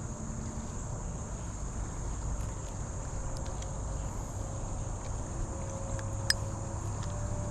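Steady high-pitched insect chorus over a low rumble, with one sharp click about six seconds in.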